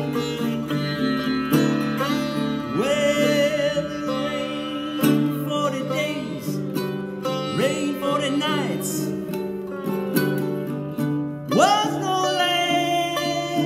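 Sitar and baritone ukulele playing a gospel tune together, the sitar making several big sweeping upward pitch bends over the plucked ukulele chords. A man's voice sings along at times.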